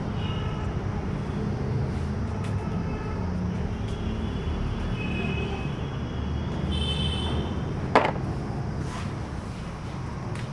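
A steady low background rumble with a few faint high-pitched tones, and one sharp knock about eight seconds in.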